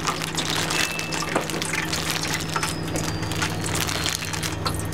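Wet sauerkraut being tipped out of a plastic bag into a tray: crackly plastic rustling with wet, liquid pouring and slithering sounds, over a steady low hum.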